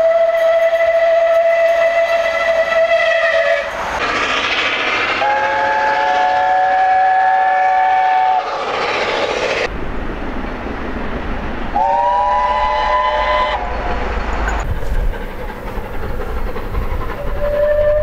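Steam locomotive whistles from several engines in turn: a held single-note whistle, then two held whistles sounding three notes at once as a chord, with the low rumble of a running train between them, and another single-note whistle starting near the end.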